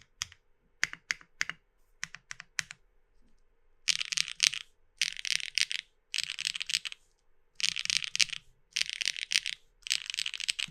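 Tess65 mechanical keyboard with HMX Aster linear switches on a polypropylene (PP) plate being typed on. First a few separate keystrokes, then from about four seconds in six quick bursts of fast typing, each about a second long.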